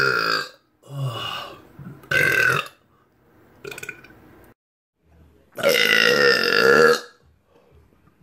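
A man belching several times: short belches in the first few seconds, then one long belch of about a second and a half, the loudest.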